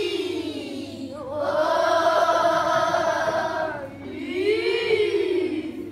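A group of children's voices crying out together in unison. A rising-and-falling swoop comes first, then a long held, higher cry from about one to four seconds in, then another swoop near the end.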